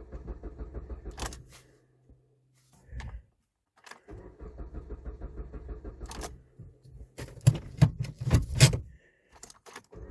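2010 Jeep Compass engine being cranked by its starter in repeated attempts, turning over in a steady pulsing rhythm without firing, a no-start that the code reader later puts down to a lean fuel condition. There is a pause of about two seconds between attempts, and a few louder knocks come near the end of the longer second attempt.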